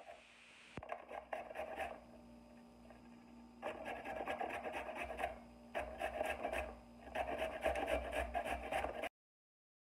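A carrot being grated by hand on a flat stainless-steel grater, in runs of quick back-and-forth scraping strokes with short pauses between them. The sound cuts off abruptly near the end.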